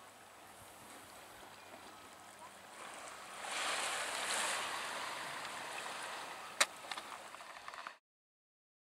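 Shoreline ambience: a hiss of wind and water lapping that swells about three seconds in. A sharp click comes near the end, then the sound cuts off suddenly.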